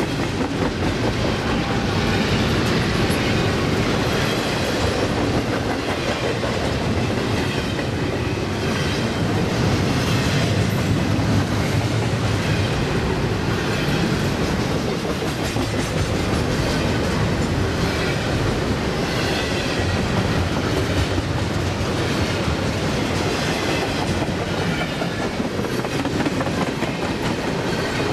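Double-stack container well cars of a CSX freight train rolling past close by: a steady rumble of steel wheels on the rails with a repeating clatter.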